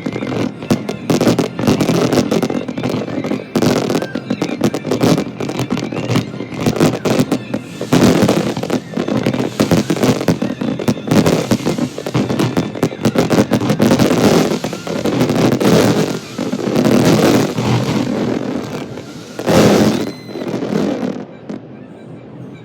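Fireworks display: a dense, loud run of bangs, booms and crackling, dying away shortly before the end.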